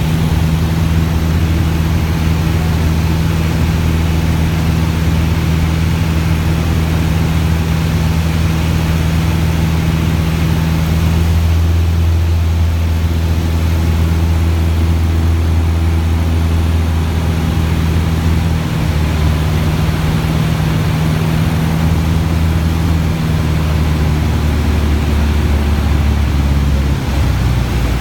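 Cessna 170's six-cylinder piston engine and propeller drone, loud and steady, with the low hum shifting slightly in pitch a few times in the second half.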